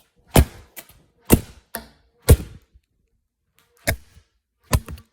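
A run of sharp knocks close to the microphone, about six loud ones with smaller taps between, unevenly spaced and with a pause of about a second after the middle. Typical of an object bumping against the recording phone or the surface it rests on.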